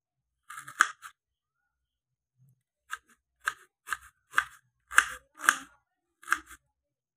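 Kitchen knife slicing a red onion on a wooden cutting board: a short run of quick cuts about half a second in, then, after a pause, about eight single strokes roughly half a second apart, each knife stroke striking the board.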